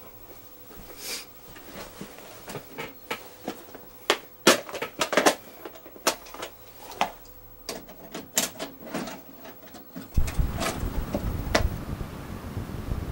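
Irregular sharp clicks and clunks of hands handling hard plastic objects. About ten seconds in this changes suddenly to a steady low rushing rumble of underwater ambience.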